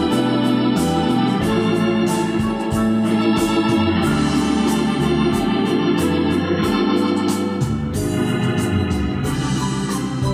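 Music with sustained chords over a bass line that steps from note to note, played back through a JVC AX-11 stereo integrated amplifier and its loudspeakers.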